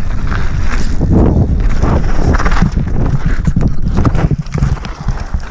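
Mountain bike rattling fast down a rough, rocky dirt trail, with heavy wind buffeting on the helmet camera's microphone and a run of jolting knocks. The noise turns choppier about four seconds in, as the rider goes down in a crash.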